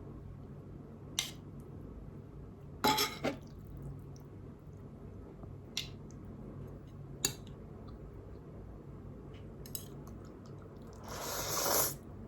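Noodle eating: scattered sharp clinks of cutlery against a dish, then near the end a noisy sound that swells for about a second and cuts off suddenly.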